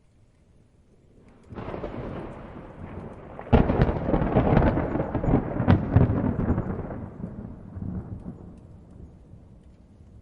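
A thunderclap: a rumble starts about a second and a half in, breaks into a loud crackling crash about two seconds later, then rolls away and fades over several seconds. Light rain runs faintly underneath.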